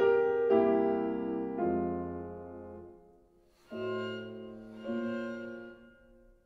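Slow piano music: chords struck one after another and left to ring and die away, with a brief pause about three seconds in, then two more chords that fade out near the end.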